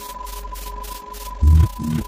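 Synthesized electronic soundtrack: a steady high beep tone over quick hissy pulses. About a second and a half in, heavy low pulses join, about three a second.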